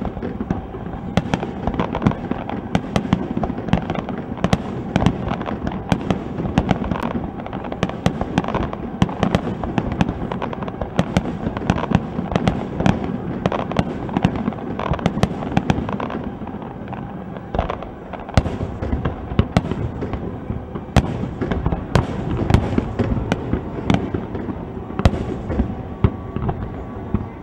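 Fireworks display: a continuous barrage of bangs and crackling from bursting shells, several sharp reports a second, easing briefly a little past the middle before building again.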